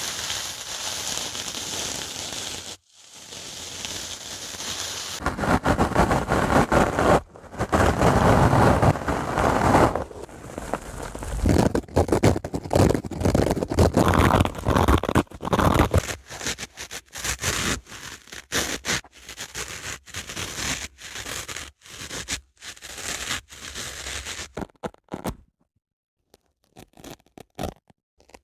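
Dry sponge scraped and rubbed close to the microphone in quick, crackly strokes. The strokes are loudest in the middle stretch, then break into shorter, quieter ones, with a brief lull near the end.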